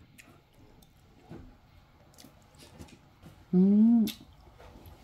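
Faint small clicks and mouth sounds of someone eating, then about three and a half seconds in a short hummed "mm" of a person's voice, rising then falling in pitch, savouring the food.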